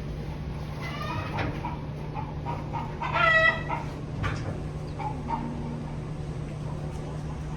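A chicken squawking twice, short pitched calls, the louder one about three seconds in, over a steady low hum.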